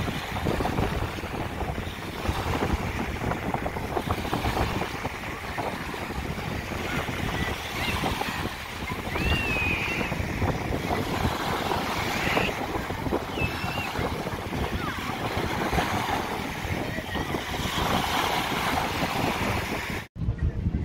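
Small sea waves breaking and washing up a sandy, shingly shore, with wind buffeting the microphone. The sound cuts off abruptly near the end.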